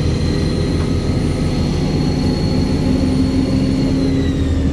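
Volvo Olympian double-decker bus's turbocharged diesel engine running with a low drone and a high, steady turbo whistle over it; the whistle drops in pitch near the end.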